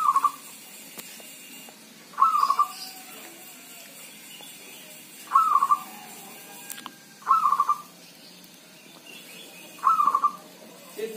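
Perkutut (zebra dove) singing: five short cooing phrases a few seconds apart.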